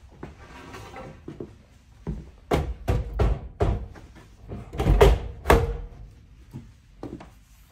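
Lumber boards knocking and thunking as they are set down and shifted on the tops of BORA Speedhorse folding sawhorses. It is a run of separate knocks, the loudest cluster between about two and six seconds in.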